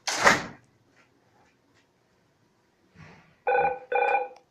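A short rush of noise right at the start, then two short electronic beeps near the end, the same pitch each time, like a door chime or intercom call tone.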